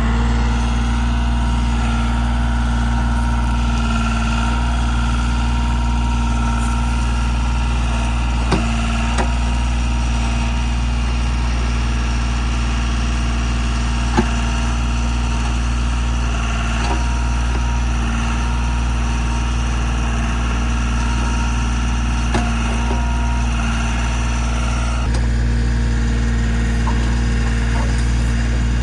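Kioti tractor's diesel engine running steadily while the front loader digs out a drainage trench, with a few short sharp knocks. The engine note changes slightly near the end.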